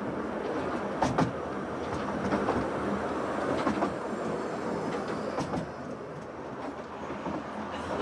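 Miniature steam railway train with its open passenger carriages rolling along the track: a steady wheel-on-rail noise broken by a handful of sharp clicks from the rail joints.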